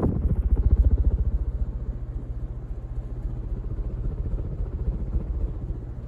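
Casablanca Delta II ceiling fan running at its top speed, speed 5, its blades pushing air across the microphone in a fast, even pulsing rumble that eases a little after about two seconds.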